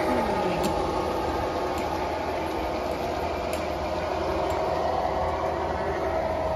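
A large-scale garden model train running along its track: a steady rumble with a steady whine, and occasional light clicks.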